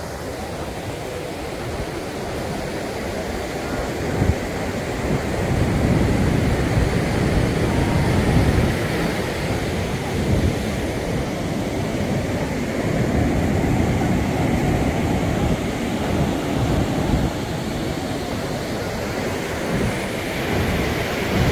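Ocean surf washing on the beach as a steady rush, with wind rumbling on the microphone in gusts through the middle of the stretch.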